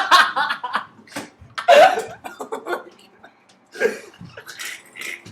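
People laughing in short, choppy bursts, with a sharp loud breathy outburst about two seconds in.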